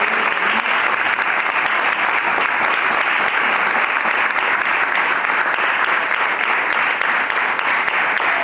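Congregation clapping in loud, steady applause.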